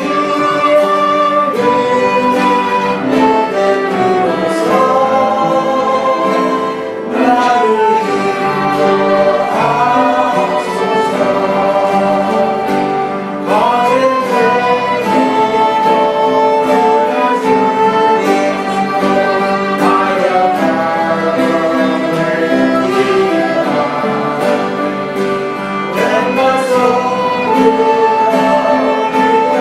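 Congregation singing a hymn with instrumental accompaniment, in phrases of sustained notes with short breaths between them about every six or seven seconds.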